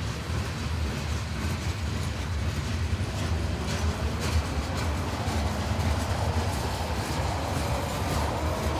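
CSX freight train rolling past with a steady low rumble, its wheels clicking over rail joints a few seconds in.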